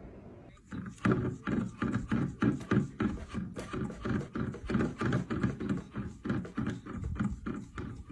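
A cat's paw tapping over and over against a tall glass, about three taps a second, each tap ringing briefly.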